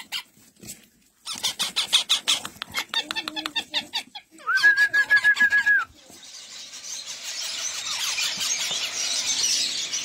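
Young green parrot chicks in a nest box giving fast, rasping begging calls, then a run of quick high notes held at one pitch for about a second and a half. From about six seconds in, a hiss builds steadily toward the end.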